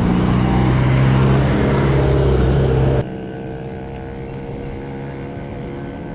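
Road traffic with a motor vehicle's engine running close by, a loud steady drone. About three seconds in it cuts off suddenly to a quieter passage of steady tones.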